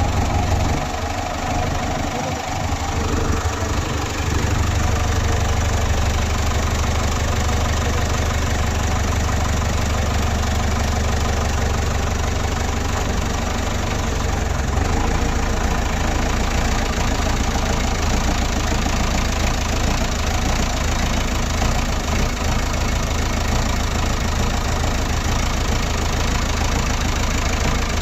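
Diesel engine of a JCB 3DX backhoe loader idling steadily, with a deep even hum and a light clatter.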